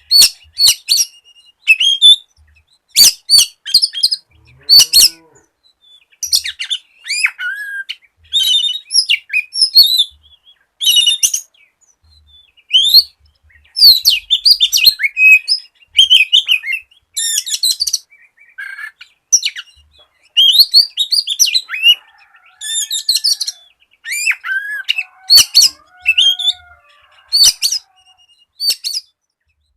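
Oriental magpie-robin (kacer) in full song. It sings quick bursts of varied chirps, whistles and trills in short phrases separated by brief pauses, with a few sharp clicks mixed in.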